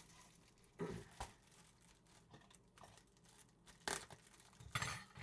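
Plastic wrapping of packaged crackers being handled: a few short, separate crinkles and rustles, the loudest about four and five seconds in.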